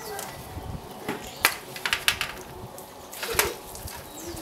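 Plastic air-conditioner filter and front panel being handled and set down on concrete: several separate sharp clacks and knocks.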